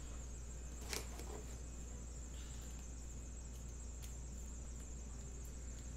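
Baseball trading cards being flipped through by hand: a few faint card clicks and slides, the sharpest about a second in, over a steady high-pitched whine and low hum.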